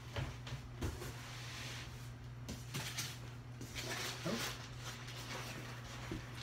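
Hands rummaging in a cardboard shipping box, rustling the packing and giving a few light knocks against the cardboard, over a steady low hum.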